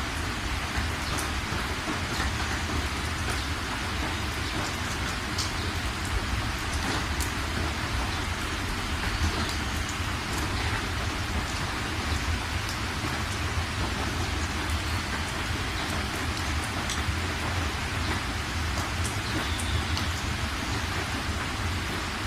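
Steady rain falling on surfaces, an even hiss with many small sharp drop ticks through it and a constant low rumble underneath.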